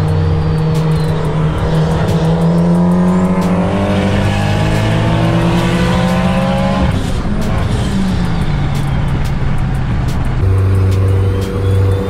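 Turbocharged Mitsubishi Evo X four-cylinder heard from inside the cabin, accelerating hard with its pitch climbing for several seconds, then dropping sharply as the throttle comes off about seven seconds in. The engine then runs on at a steadier note.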